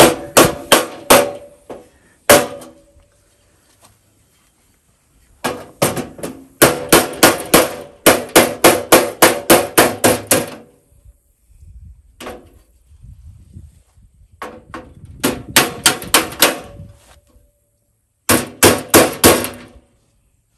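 Hammer striking thin sheet metal in quick runs of ringing blows, about four a second, with pauses between runs: dents being knocked out of a garden tractor's body panel.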